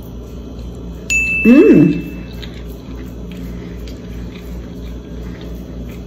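A woman's short closed-mouth "mmm" of enjoyment as she tastes food, its pitch rising then falling, about one and a half seconds in. It overlaps a thin, high, steady beep-like tone that starts with a click and lasts about a second. Otherwise there are only faint small clicks.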